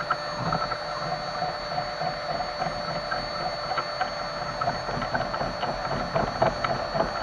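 Small electric power tool running steadily, with irregular scraping clicks as it works a part.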